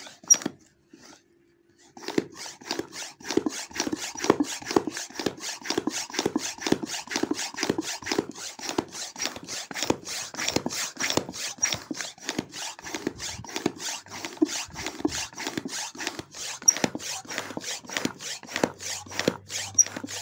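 Hand bicycle pump worked in quick, even strokes, about three a second, forcing air into a steam iron's clogged steam passage to clear it. The pumping starts about two seconds in.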